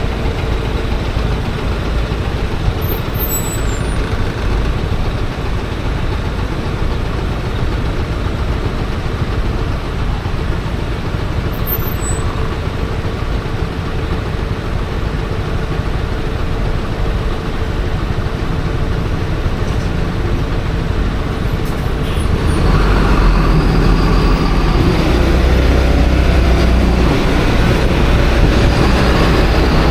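Road noise while riding a Honda Forza 350 scooter in traffic: a steady rumble of engines and heavy vehicles with a rush of wind. The rumble grows louder and deeper about 23 seconds in.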